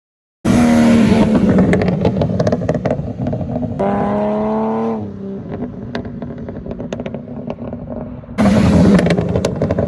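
Subaru EZ30R 3.0-litre flat-six revved in three blips, the exhaust crackling and popping as the revs drop: mild deceleration crackles from a tune on the stock ECU. The engine starts sharply about half a second in, and a rev climbs and cuts off midway, followed by a patch of quieter crackling. Another loud rev comes near the end.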